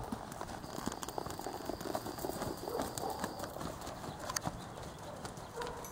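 Hoofbeats of a palomino Quarter Horse gelding being ridden around a sandy dirt arena, a run of uneven dull knocks.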